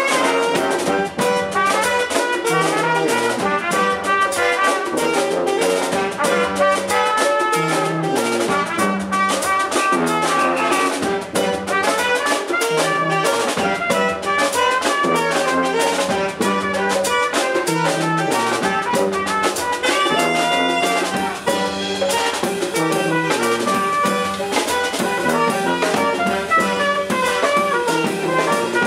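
Brass band playing live, with trumpets leading over saxophone and trombone and a sousaphone bass line, at a brisk jazzy beat.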